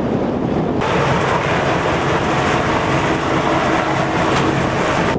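Steady engine drone under wind and sea noise, starting abruptly about a second in.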